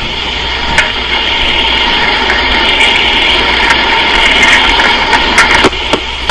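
Steady hiss and hum of an open telephone line on an old answering-machine cassette recording, with a few faint clicks about a second in and twice near the end.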